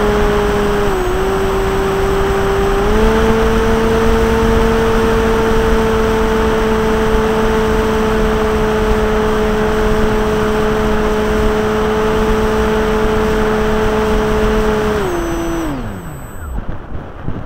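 Electric RC model plane's brushless outrunner motor and propeller whining at a steady pitch with airflow rush on an onboard camera. The pitch dips briefly about a second in and rises a little a couple of seconds later. Near the end the whine winds down and stops as the motor is throttled off, leaving only wind noise on the microphone.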